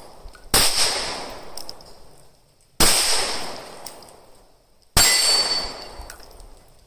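Three 9mm pistol shots from a Glock 19 Gen 5, about two seconds apart and fired at a slow, steady pace. Each crack trails off over a second or more.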